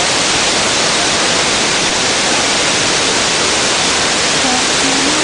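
Loud, steady rushing of a waterfall and swift river water, with no breaks. A faint voice comes through near the end.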